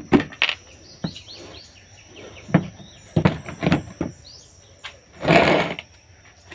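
Irregular knocks and clatters, with a longer scraping or rustling burst about five seconds in, over birds chirping and a steady high whine.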